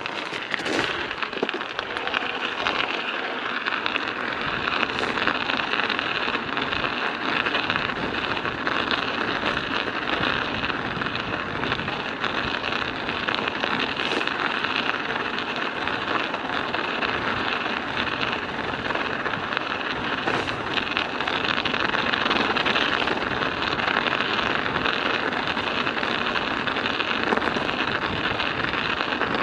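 Studded bicycle tyres rolling along at riding speed: a steady, dense clattering hiss of the metal studs on an icy road.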